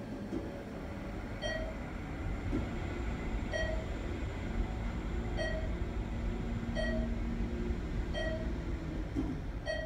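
ThyssenKrupp traction elevator car travelling, giving a short beep as it passes each floor. There are six beeps, coming closer together as the car gets up to speed, over a low steady rumble and hum from the ride.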